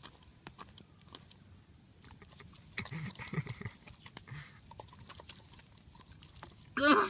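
Scattered light clicks and scrapes, with a thin steady high tone in the first two seconds, then a short, loud, grunt-like vocal sound just before the end.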